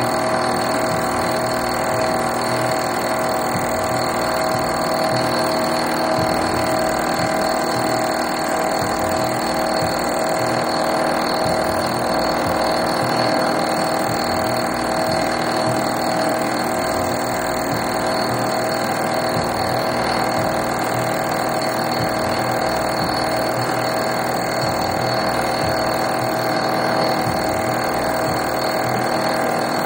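Vertical milling machine running steadily as a dovetail cutter mills a dovetail into a cast iron block, a constant mechanical whine holding several fixed tones.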